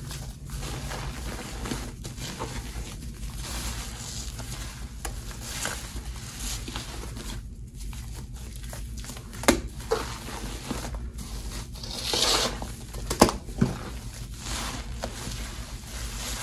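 Hands squeezing and kneading sponges through a thick, gritty paste of scouring powder, laundry detergent powder and boiled bar soap in a steel bowl: a continuous wet crackling and squishing. Two pairs of sharp clicks come in the second half.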